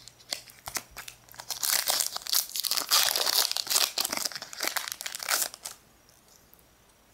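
Foil wrapper of a Pokémon Fossil booster pack crinkling and tearing as it is ripped open by hand. A few light taps come first, then dense crinkling from about a second and a half in until nearly six seconds in, where it stops.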